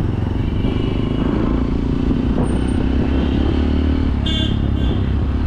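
Hero Impulse motorcycle's single-cylinder engine running steadily while the bike is ridden, its note lifting slightly about a second in.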